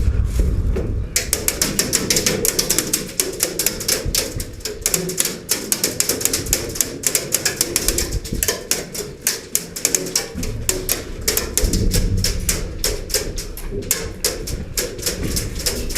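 Airsoft guns firing, a dense run of rapid sharp clicks several times a second, over background music.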